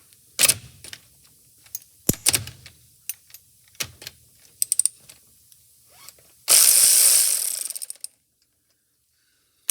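Sharp clicks and knocks as a cordless electric ratchet and its sockets are handled. About six and a half seconds in, the ACDelco electric ratchet runs loudly for about a second and a half and trails off.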